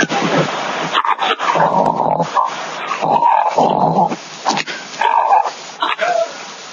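Snoring: a run of noisy, rasping snores about one every two seconds.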